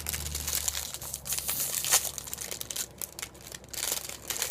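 Candy packaging being crinkled and torn open by hand, a run of irregular crackles and rustles.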